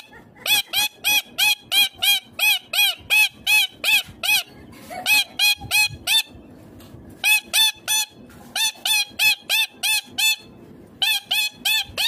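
Indian ringneck parakeet calling: rapid runs of short, high-pitched, repeated calls, about four a second, in several bursts broken by short pauses.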